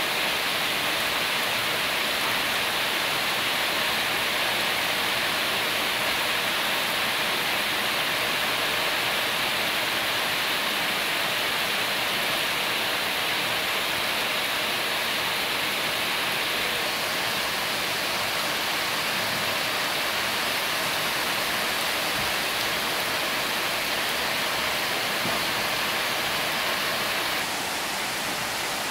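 Heavy rain pouring steadily on corrugated tin roofs, a dense, even hiss. It drops slightly in level near the end.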